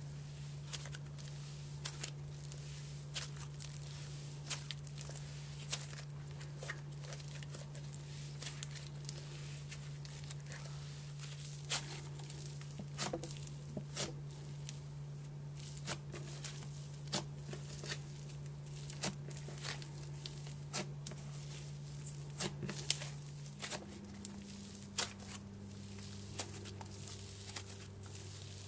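Cloud slime made with instant snow being squeezed, stretched and pulled apart by hand: soft tearing with many irregular sharp crackles and pops.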